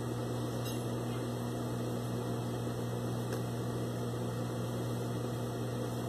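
Steady electric hum from the sewing machine's motor left running while the needle is idle. Only a couple of faint ticks break it.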